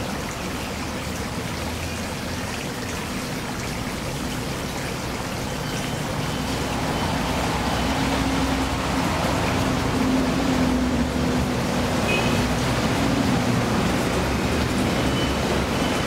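Steady trickle of flowing water in a small garden pond. From about halfway through, a motor vehicle's low engine hum builds and the overall sound grows louder.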